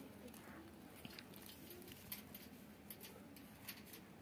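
Near silence with a few faint scattered ticks and light scrapes from a rose-ringed parakeet's claws and beak on concrete and on a wire cage as it climbs.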